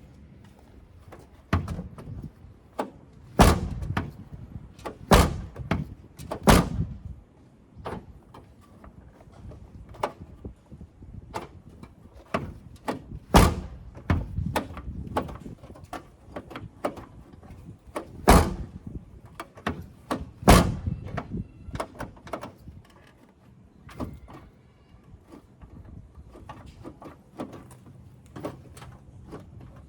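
Rear door and latch of a Mitsubishi Pajero Mini clunking and clicking as they are worked on. Sharp knocks come every few seconds, with lighter clicks and rattles between.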